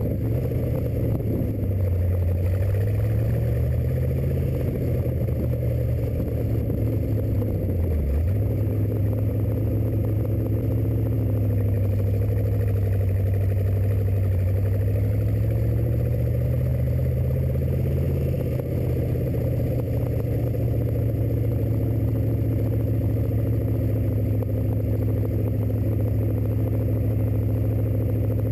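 Rat rod engine with Stromberg carburettors on a home-built intake, running as the car is driven. Its note rises and falls with changes in speed, with a short dip about eight seconds in.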